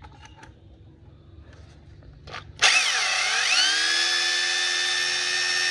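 Bosch GBH 2-24DSE corded rotary hammer, its motor rewound for 220 V, switched on after a few handling clicks: about two and a half seconds in it starts, the whine dipping then quickly rising to a steady high pitch as it runs at full speed.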